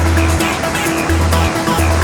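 Electronic dance music with held bass notes that change in steady blocks and sustained synth tones.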